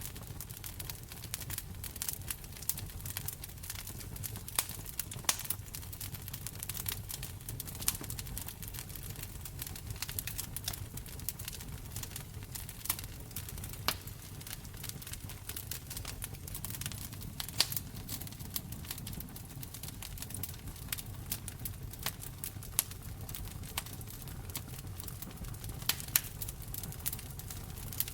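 Wood fire in a fireplace crackling: frequent irregular sharp pops and snaps over a steady low rumble of the flames.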